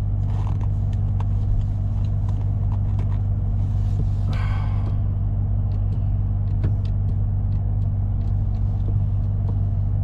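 Chevrolet Silverado pickup standing and idling, heard from inside the cab as a steady low drone, with faint scattered clicks and a brief rush of noise about four seconds in.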